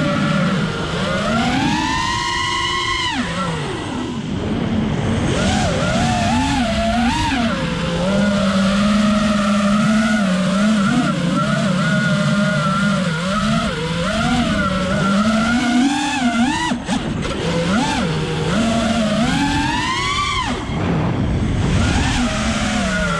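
FPV freestyle quadcopter's electric motors whining, the pitch rising and falling with every throttle change, with two sharp climbs to a high whine, about two seconds in and again near the end.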